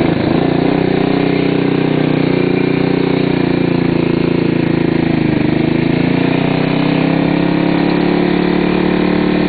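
Motorcycle engine running steadily as the bike is ridden along the road, with a slight dip in pitch about halfway through.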